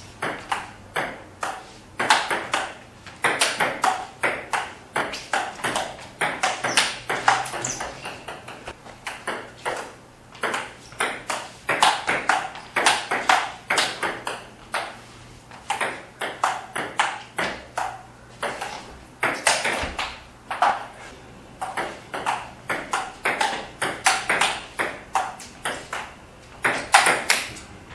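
Table tennis ball clicking back and forth in rallies, struck by paddles and bouncing on the table several times a second, with brief pauses between points.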